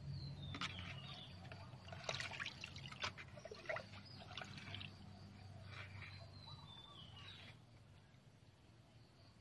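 Water sloshing and splashing in a plastic bucket as a plastic bowl is dipped in, scooped and poured back, in irregular splashes that die down near the end.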